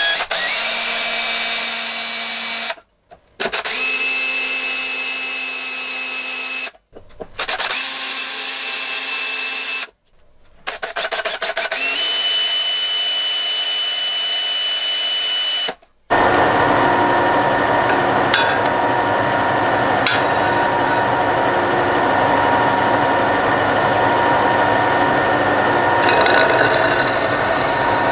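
Cordless drill starting holes in a metal disc, running in four bursts of steady whine with short pauses between them. About halfway through the sound changes to a milling machine running steadily as its drill bit bores into the disc.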